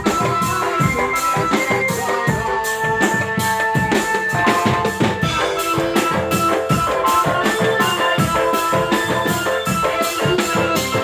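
Drum band (dramben) music: snare and bass drums beating a busy, steady rhythm under a sustained melody line.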